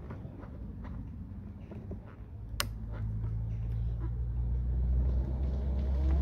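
Low vehicle rumble that grows steadily louder from about halfway through, with a sharp click shortly before it rises and scattered light clicks.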